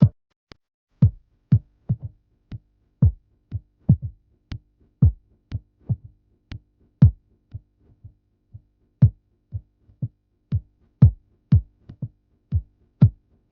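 Background music: an electronic drum-machine beat, a deep kick drum falling in pitch, about two hits a second, over a faint sustained tone.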